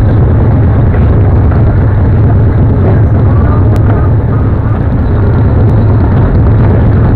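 Motorcycle engine running at low speed: a loud, steady low rumble.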